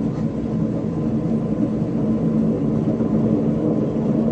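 Washing machine drum spinning with a loud, steady grinding rumble and hum, the terrible noise of worn-out drum bearings. It grows slightly louder toward the end as the spin speeds up.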